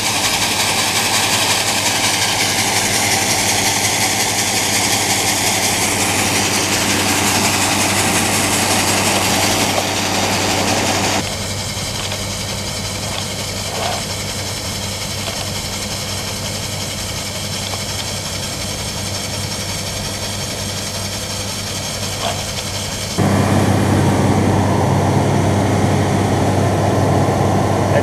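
Grain auger running and shelled corn pouring into a metal grain bin, a steady hiss over an engine hum. The sound changes abruptly twice; in the last few seconds the engine hum is louder and closer.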